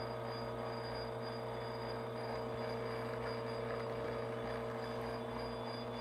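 Espresso machine's pump running steadily during shot extraction, a low even hum with a few steady tones.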